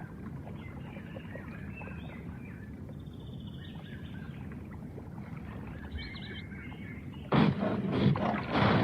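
Steady low background noise with faint bird calls. About seven seconds in, a loud creature roar, a big-cat-like sound effect, cuts in and carries on.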